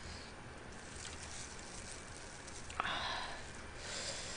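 Quiet close-miked eating and handling sounds: steamed swimming crab being pulled apart with a plastic-gloved hand. About three seconds in, a short rasping sound lasting about a second.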